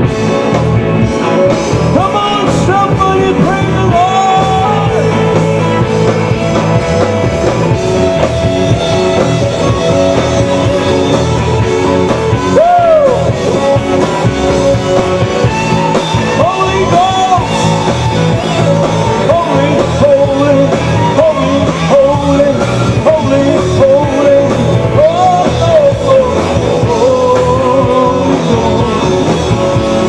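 Live band playing rock-style music, with electric guitar and bass guitar, and a man singing at the microphone. Sustained and bending notes run throughout.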